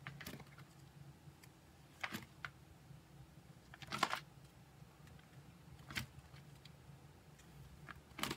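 Clear plastic sleeve pages in a ring binder being turned one after another, each turn a short crinkling flap, five in all about two seconds apart.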